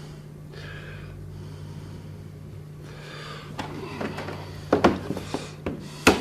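Light taps and knocks on lead sheet, starting about four seconds in and growing louder, over a steady low hum.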